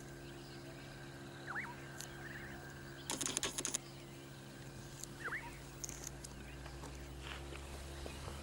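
A bird repeating a short, sweeping call about every three and a half seconds over a steady low hum. About three seconds in comes a brief burst of crackling rustle, the loudest sound here.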